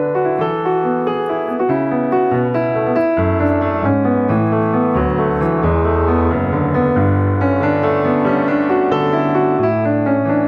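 Background music: piano playing chords and a melody.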